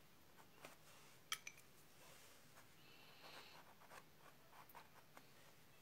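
Faint scratching of a colored pencil shading on tan card, with a few light ticks of the pencil tip, the sharpest about a second and a half in.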